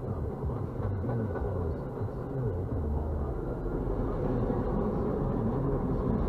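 MBTA commuter rail coaches rolling past, a steady low rumble of wheels on the rails, growing a little louder near the end as the diesel locomotive pushing the train comes alongside. Heard muffled from inside a parked car.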